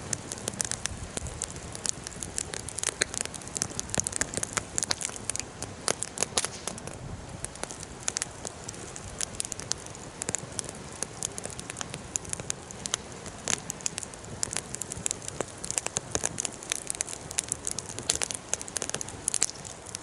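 Wood fire burning and crackling, with many irregular sharp pops and snaps over a soft steady hiss.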